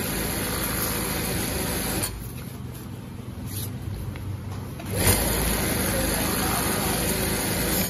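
Industrial flatbed sewing machine stitching heavy black bag fabric in two runs, with a quieter pause of about three seconds between them while the fabric is repositioned.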